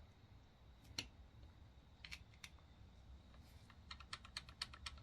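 Faint metal clicks and taps of a small screwdriver prying at the clutch lock washer tab: one about a second in, a few around two seconds in, then a quick run of about eight near the end.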